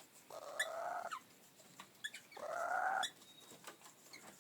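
Wild birds calling: two harsh squawks of under a second each, about two seconds apart, with a few short, sharp, high chirps around them.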